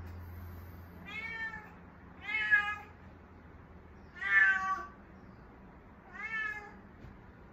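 A domestic cat in heat calling: four meows about two seconds apart, each sweeping up in pitch at the start. This is the insistent attention-seeking yowling of a queen in oestrus.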